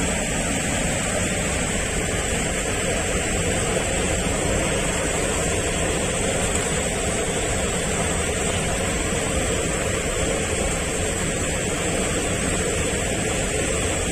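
Steady, even rushing noise with no separate events, such as close flowing water or wind on the microphone would make.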